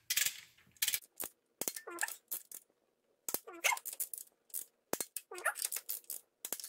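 Ratcheting torque wrench tightening a cylinder head bolt on a 1.6 N16 engine to its first-stage 22 lb-ft: a run of sharp metallic ratchet clicks as the handle is worked back and forth, with a short rising squeak every second or two.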